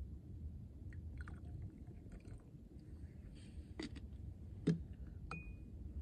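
Coffee being poured from a glass pour-over carafe into a ceramic cup, then cups and a jar handled and set down on rock: light clicks, then three sharp clinks, the loudest a little under five seconds in and the last one ringing briefly.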